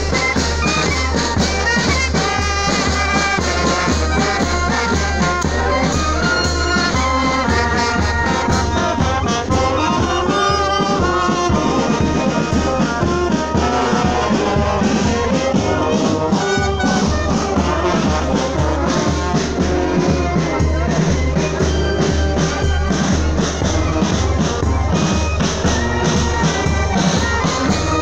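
Marching band playing live: trombones and saxophones carry the tune over a steady beat from bass and snare drums.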